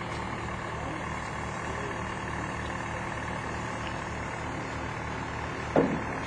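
Heavy diesel engine of the crane running steadily at a low idle. A short, sharp, louder sound comes near the end.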